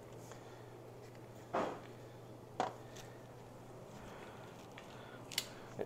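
A few faint, short clicks and knocks, spaced a second or more apart, over a steady low hum.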